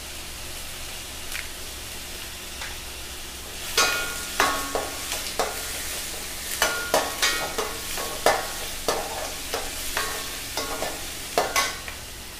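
Chopped small onions, garlic and peppercorns sizzling in hot oil in a stainless steel kadai. From about four seconds in, a slotted steel spatula scrapes and clinks repeatedly against the pan as they are stirred.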